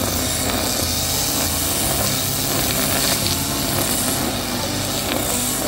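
Backpack brush cutter's small petrol engine running steadily at working speed, with its nylon string head whipping through grass in a continuous hiss.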